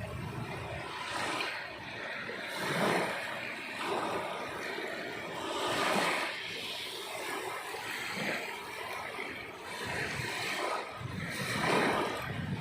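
Sea waves breaking and washing on the shore: a steady rush of surf that swells into louder surges every few seconds.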